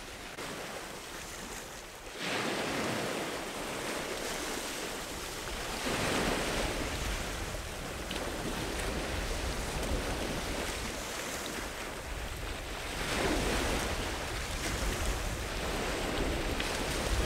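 Sea waves breaking and washing against a concrete groyne, surging up in swells about two, six and thirteen seconds in. A low wind rumble on the microphone runs underneath.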